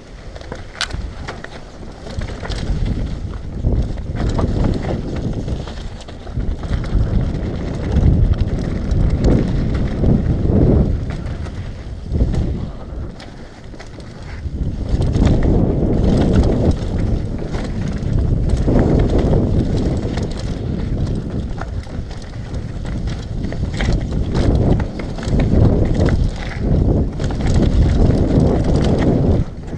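Mountain bike descending a dirt trail at speed: wind buffets the helmet-mounted action-camera microphone, rising and falling in waves, while the tyres roll over dirt and roots and the bike rattles with scattered sharp clicks and knocks over bumps.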